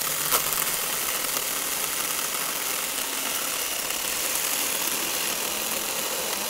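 Tomyvic 6-inch battery-powered mini electric chainsaw running steadily as it cuts through a fallen log, with a brief click near the start.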